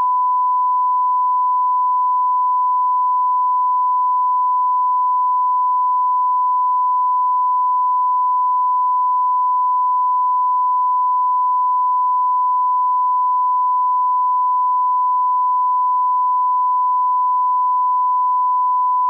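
Broadcast line-up tone: a single steady, unbroken 1 kHz sine-wave test tone of the kind that accompanies colour bars, used as a reference for setting audio levels.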